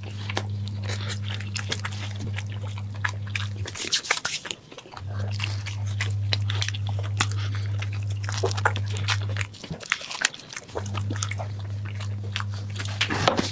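Close-miked chewing and biting of soft shawarma wraps by two people: irregular wet mouth clicks and smacks. A steady low hum runs underneath and drops out twice.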